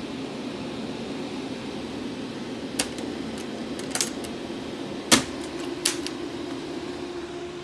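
Two axial cooling fans in a wooden enclosure lid running with a steady rushing hum. A few sharp clicks and knocks from the enclosure being handled come through it, the loudest about five seconds in.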